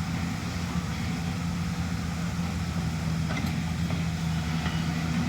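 Backhoe's diesel engine running steadily, a low even drone.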